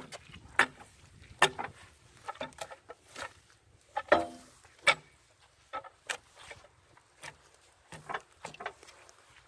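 Irregular knocks and thuds, about one or two a second, some with a short ringing note: footsteps in mud and handling of the log and its 2x4 spacers.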